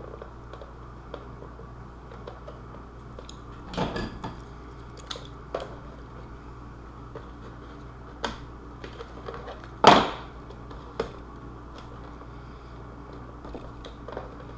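Scattered clicks and knocks of hard plastic armor pieces and tools being handled while the parts are glued together. There is a cluster of knocks about four seconds in, and the loudest, single sharp knock comes near ten seconds.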